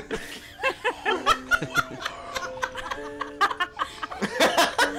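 Canned audience laughter from a laugh track: many people chuckling and laughing in short, overlapping bursts. Underneath are the held notes of a film score.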